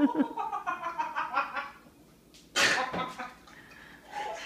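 A person laughing in quick repeated pulses, then one hard, noisy cough about two and a half seconds in.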